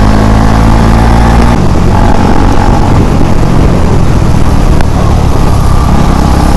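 KTM Duke 250's single-cylinder engine running at road speed, heard from the rider's seat with rushing wind on the microphone. The note is steady at first and changes abruptly about a second and a half in, becoming rougher and noisier.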